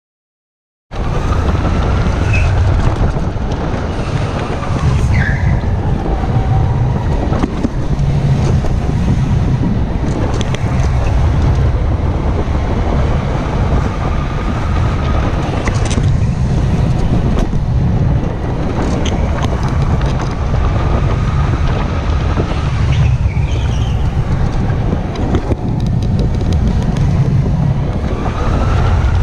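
Onboard sound of a go-kart lapping an indoor track, starting about a second in. A loud, steady rumble of the kart and the rushing air, with a faint whine that rises and falls as the kart speeds up and slows through the corners.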